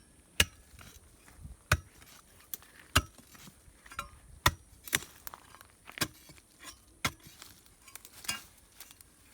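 A metal digging tool striking stony soil and rock again and again, about once a second, as it chops down to a plant root wedged among stones.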